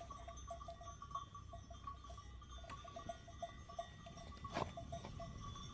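Bells on a flock of livestock clink irregularly and faintly as the animals move. There is one sharp click about four and a half seconds in.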